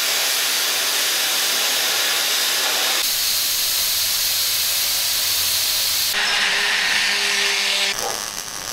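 Plasma cutter cutting steel pipe: a steady, loud hiss of the air jet and arc, changing in tone about three and six seconds in and falling away near the end.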